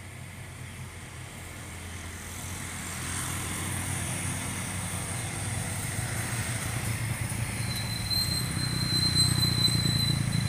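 Heavily loaded Hino wing-box truck's diesel engine running under load, growing steadily louder as the truck approaches. A thin, high, steady tone joins in during the last few seconds.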